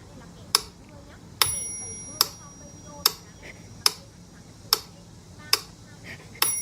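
Steady, regular ticking, a sharp tick a little more often than once a second, with a short bell-like ring twice: about one and a half seconds in and near the end.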